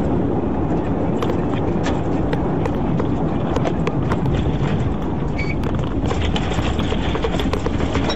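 Road and engine noise of a moving patrol car, heard from the inside, with irregular clicks and knocks rattling through it as the car slows onto the shoulder.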